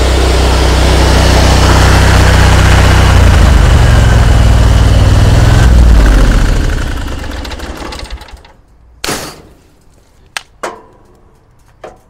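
A trailer-mounted pressure washer's engine runs steadily, with the hiss of the spray gun rinsing with fresh water. About halfway through, the engine is shut off and dies away over a couple of seconds. A few short clicks and knocks follow.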